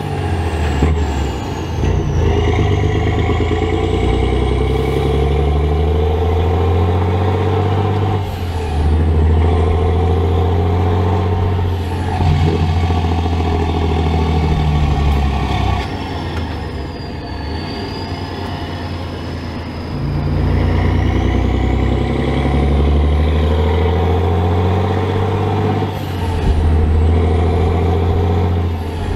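Volvo F16 truck's 16-litre straight-six turbo diesel heard from inside the cab, pulling through the gears: the engine note climbs under load and drops at each shift, several times, with a quieter off-throttle stretch in the middle. A thin high whistle glides up and down above the engine.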